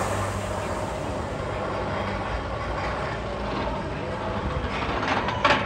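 A steady mechanical rumble like a large vehicle running, with a short sharp hiss-like burst just before the end.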